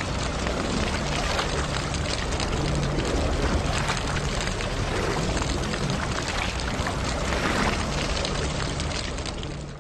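Rushing, splashing water, a steady wash of noise that fades near the end.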